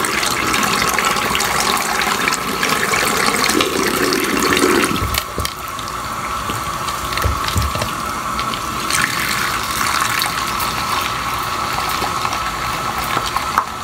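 Tap water running steadily into a sink while a hair closure is washed under the stream, with a thin steady whine over the rush of water.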